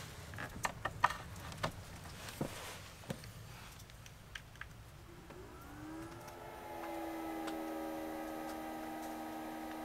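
A few sharp clicks and knocks as an LG projector is handled on a hard plastic case. About five seconds in, the projector's cooling fan starts up, its hum rising in pitch for a second or so before settling into a steady hum as the projector powers on.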